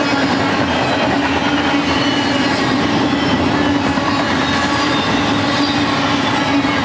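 Double-stack intermodal freight train's container well cars rolling past: a loud, steady rumble of steel wheels on rail with a constant low hum and faint thin high tones.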